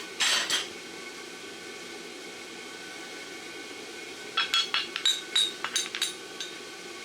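Light hammer taps on the steel bar shoe at the anvil: about a dozen quick, ringing metallic clinks over two seconds near the end, after a brief scrape at the start.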